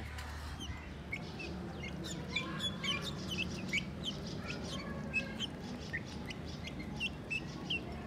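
Several young game-bird chicks peeping: a quick run of short, high chirps, several a second, over a low steady hum.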